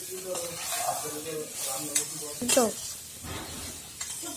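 Metal spoon stirring and scraping fried black chickpeas in a steel kadhai, with a light sizzle as they fry.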